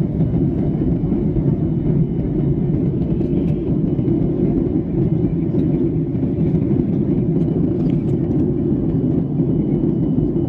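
Steady, loud low rumble of a Boeing 737-800's passenger cabin: engine and airflow drone heard from inside the airliner.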